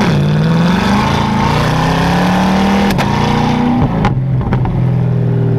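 2020 Chevrolet C8 Corvette's 6.2-litre V8 through a custom aftermarket exhaust, accelerating hard in Z mode: the revs climb, the dual-clutch gearbox upshifts with a sharp crack about three seconds in and again about a second later, and the engine then holds a steady drone.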